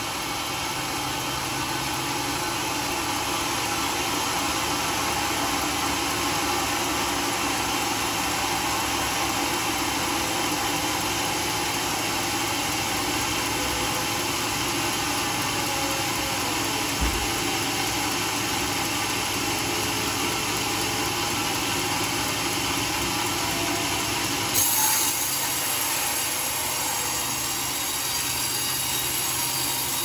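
Large band sawmill running steadily, its blade sawing through a teak log over the drone of the mill's motor. A short knock about halfway and a brief louder clatter a few seconds before the end.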